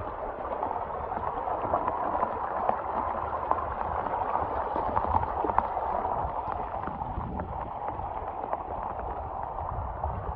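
Muddy storm runoff flowing steadily over and between low loose-rock check dams, a continuous watery wash with a low rumble beneath it.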